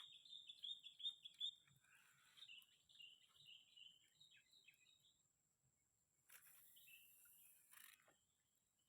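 Faint bird song: a quick run of high chirping notes that fades out about five seconds in. Later comes a brief hiss lasting about a second and a half.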